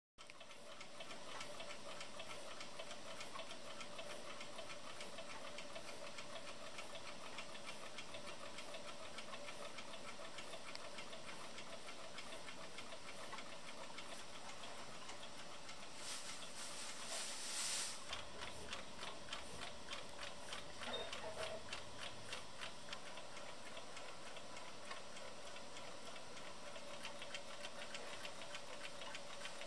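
A mechanical clock ticking quickly and evenly, over a faint steady hum. A short burst of hiss comes a little past halfway.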